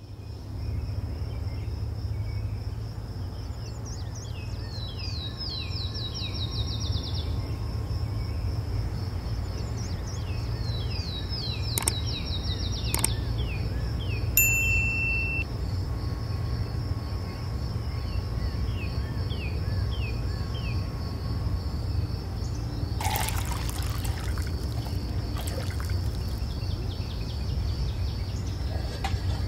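Outdoor nature ambience: birds singing in repeated falling trills over a steady high insect drone and a low rumble. A couple of clicks and a short beep sound about halfway through, and a short rustling burst comes later.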